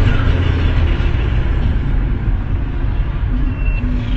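Steady engine and road rumble of a car heard through a dashcam's microphone. Near the end a high electronic beep sounds once, the first of a repeating beep.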